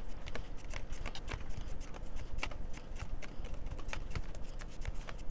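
A deck of tarot cards being shuffled by hand: a quick, irregular patter of clicks and slaps as the cards strike one another and the pile.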